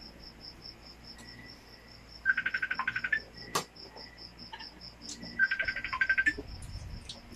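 Steady high trill of a cricket throughout, interrupted twice by loud bursts of rapid chirping, each under a second long, about three seconds apart. A few light clicks.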